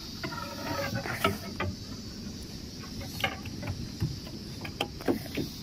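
Steady high-pitched insect drone, with scattered light knocks and taps.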